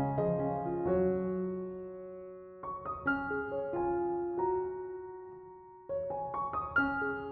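Background piano music: a slow, gentle melody of single notes and chords that ring and fade away, with a new phrase beginning about a third of the way in and another near the end.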